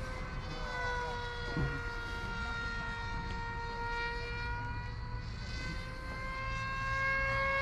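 Radio-controlled model airplane flying overhead: a steady, high propeller drone whose pitch sags slowly over the first few seconds and climbs again near the end.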